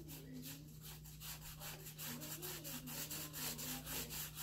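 Wooden popsicle stick scraping paint back and forth across a sheet of paper in quick, even strokes, about five or six a second, louder from about two seconds in.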